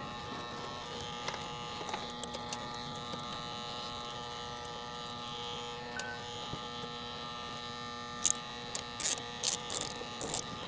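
Steady electrical buzzing hum from running equipment, with a cluster of sharp clicks and snaps in the last couple of seconds.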